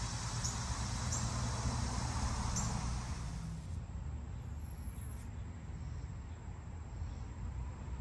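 Quiet outdoor background: a steady low hum under a hiss, with a few short high chirps in the first three seconds. The hiss drops away about three and a half seconds in.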